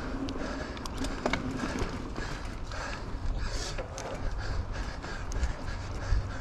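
Mountain bike being ridden on a dirt trail: tyres rolling over the ground, with frequent sharp clicks and knocks from the chain, hub and frame.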